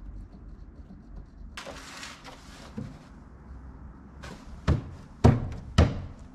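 Workshop handling sounds over a low steady hum: a brief scraping rustle about one and a half seconds in, then three sharp knocks about half a second apart near the end, the last two the loudest.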